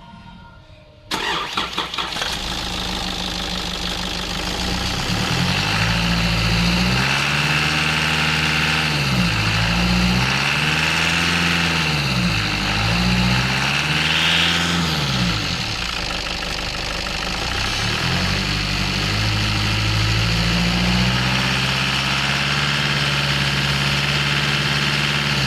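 Nissan Patrol's ZD30 four-cylinder turbo-diesel cranking and starting about a second in, idling, then revved up and back down four times before settling at a steady speed. The squeal is gone with a new exhaust manifold fitted in place of the cracked, leaking one.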